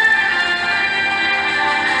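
Background music with held instrumental notes.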